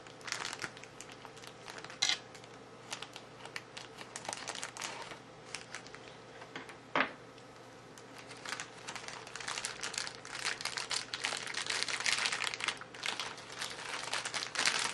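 Plastic packaging crinkling and crackling as small figure parts are pulled out of it by hand, busier in the second half, with two sharper clicks about two and seven seconds in.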